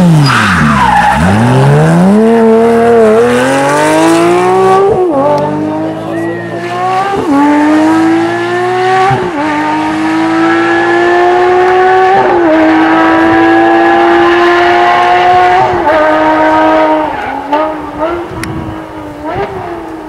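Porsche 997 GT3 RS rally car's flat-six engine, revs falling as it slows into a bend and then accelerating hard at high revs. The pitch climbs and drops sharply at each of several upshifts. The sound fades near the end as the car pulls away.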